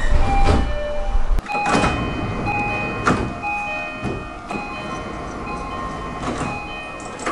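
JR East-type three-tone train door chime sounding over and over as the sliding doors work, with knocks and hissing door noise. A low train rumble fills the first second or so and ends at a sharp clunk.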